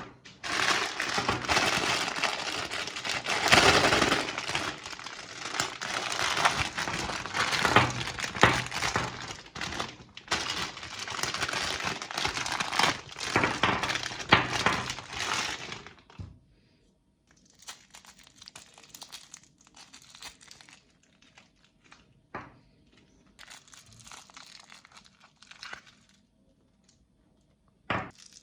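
Hard lollipop candy being crushed in a meat grinder: dense, loud cracking and crunching for about sixteen seconds, then sparser, quieter crackles over a faint steady hum, and one sharp crack near the end.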